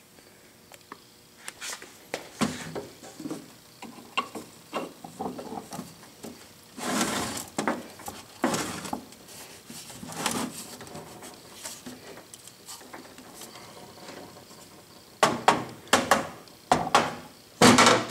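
Irregular clinks, knocks and a few longer scrapes of metal motor parts being handled and fitted together: the housing and end bell of a Dayton capacitor-start motor being reassembled around its rotor. A cluster of sharper knocks comes near the end.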